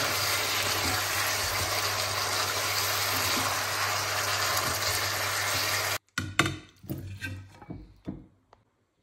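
Chicken legs sizzling in a nonstick frying pan as they are stirred, a steady hiss over a low hum. The hiss cuts off suddenly about six seconds in, followed by a few light knocks and clinks as a plate and glass bowl are handled.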